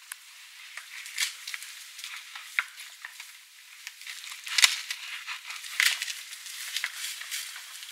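Dry branches and brush crackling and snapping irregularly as two African elephants shove and tusk-fight through the bush, with a sharp loud snap about four and a half seconds in.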